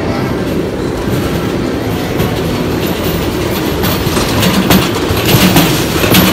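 Ride-on miniature railway train rolling along its track, the wheels clattering over the rails, louder and more rattling from about four seconds in.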